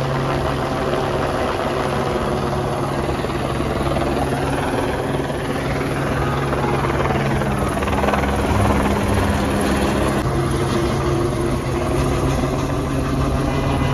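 Helicopter hovering overhead: a loud, steady drone that holds one pitch throughout.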